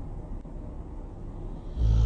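Snoring: a low rumbling breath, then a loud, low snore with a raspy hiss that starts near the end.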